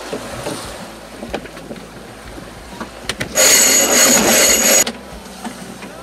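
A sailboat's sheet winch ratcheting in one fast, even buzz lasting about a second and a half as a sheet is hauled in by hand, over the hiss of wind and water.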